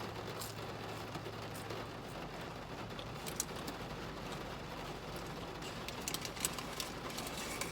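Steady rain falling on a car, heard from inside the cabin, with scattered sharp ticks that cluster near the end. A low hum underneath stops about two seconds in.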